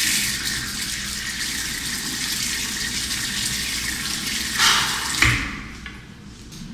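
Steady rushing of running water that starts suddenly, surges louder twice near the end, then dies away.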